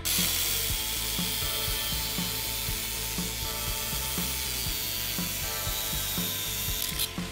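Handheld angle grinder cutting metal: a steady, loud, high grinding hiss that starts abruptly and stops shortly before the end.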